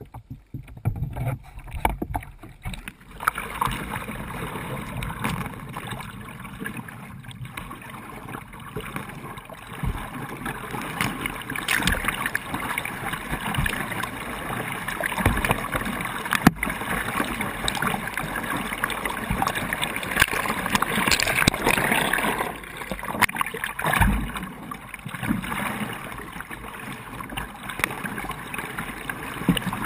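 Water splashing and rushing around a playboat kayak, with paddle strokes in the water, heard from a camera on the boat's deck. It is muffled and quieter while the camera is underwater, then becomes a steady splashing about three seconds in once the boat is upright.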